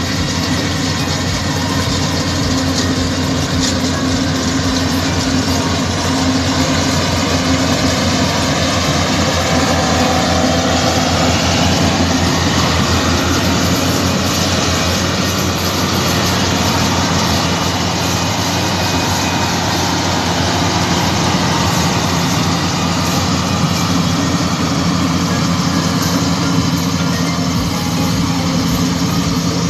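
Yanmar combine harvester running steadily as it cuts rice: a continuous engine drone with the machine's threshing and cutting clatter, unchanged throughout.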